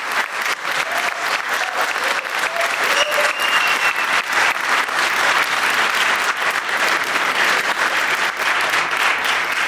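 Audience applauding: a dense, steady clatter of many hands clapping in a hall.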